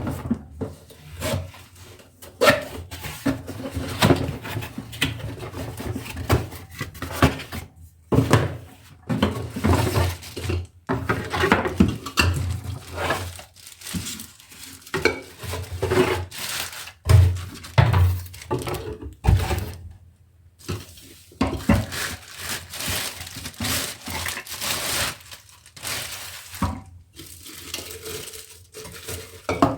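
Kitchen items being handled on a countertop: an irregular run of clatters and knocks from dishes and utensils, with some rustling.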